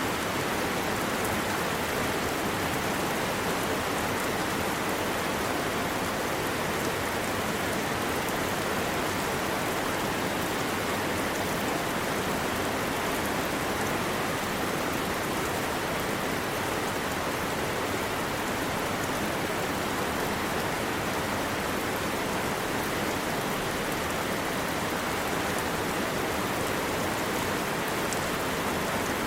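Heavy rain falling steadily, a dense even hiss of drops with scattered fine ticks of individual drops.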